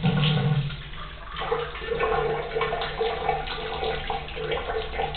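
Tap water running and splashing into a basin, the sound of the stream fluttering unevenly, with a steady low hum under it.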